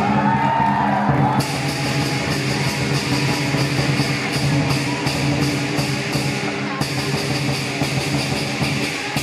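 Lion dance percussion ensemble playing at a steady beat: a big drum with clashing cymbals and a ringing gong. The cymbals drop out briefly near the start, then come back in.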